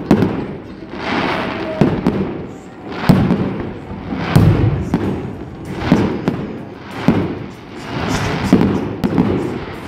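Aerial fireworks bursting in quick succession, about one boom a second, each followed by crackling.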